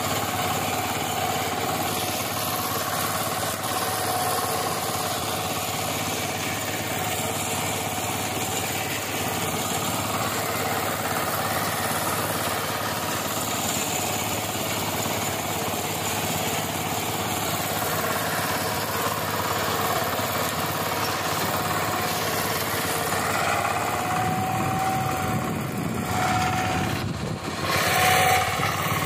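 VST Shakti 130 DI power tiller's horizontal single-cylinder diesel engine running steadily under load as its rotary tiller churns the soil. Near the end the engine note shifts and swells briefly as the tiller is turned.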